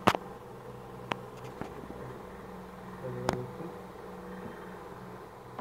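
A few sharp clicks and taps as a computer cable's white connector is handled, the loudest right at the start and about three seconds in, over a steady low electrical hum.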